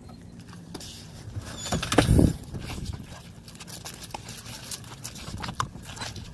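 A loud rattling thump about two seconds in, then a patter of quick steps and a dog's paws on asphalt as the dog runs about.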